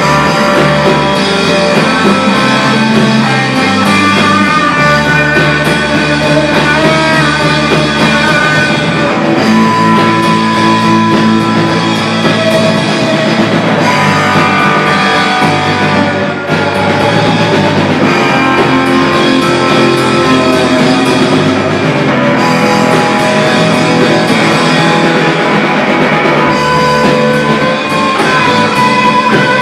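Live rock band playing loud: distorted electric guitars over a drum kit.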